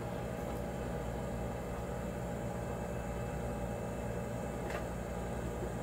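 Steady low electrical hum and hiss of room tone, with one faint tick about three-quarters of the way through.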